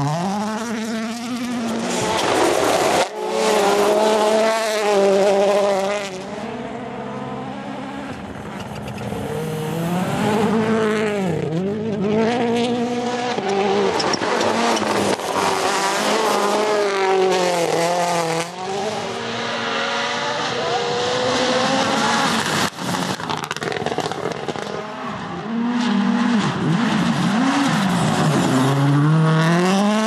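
WRC Rally1 cars, a Ford Puma and a Hyundai i20 N, flat out on a gravel stage. Their turbocharged four-cylinder engines rev hard, the pitch climbing and falling again and again with gear changes and lifts through the corners, over a hiss of tyres and gravel.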